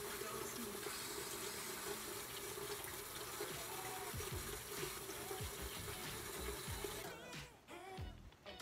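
Bathroom tap running steadily into a sink. The water stops about seven seconds in, leaving a few light knocks.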